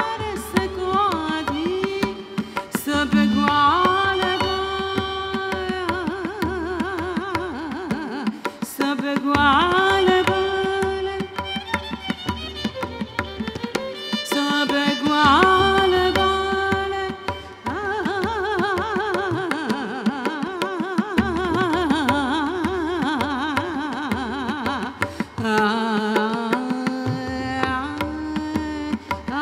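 Hindustani classical music in raag Kirwani, teentaal: a woman sings long gliding, ornamented phrases over tabla accompaniment.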